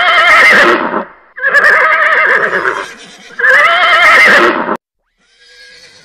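A horse whinnying three times in a row, each neigh loud with a quavering, wavering pitch and lasting just over a second. The last one cuts off suddenly.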